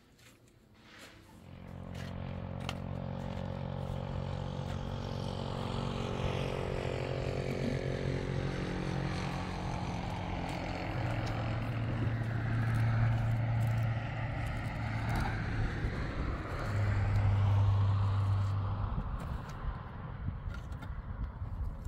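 A motor vehicle's engine running, coming up over the first two seconds, louder for two stretches in the middle, and easing off near the end.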